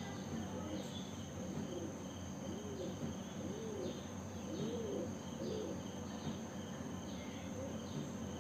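Background of birds and insects: low calls that rise and fall, repeated about once a second, over higher chirps and a steady high insect tone.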